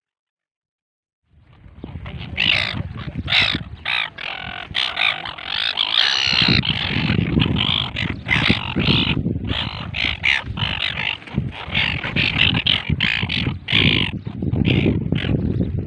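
A flock of gulls squawking and calling over one another, many harsh overlapping calls in quick succession, starting abruptly about a second in.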